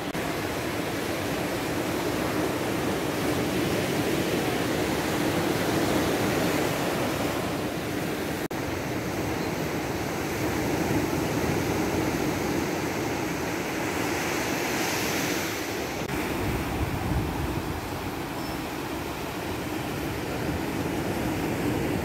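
Surf breaking and washing up a sandy beach: a steady, continuous rush of waves.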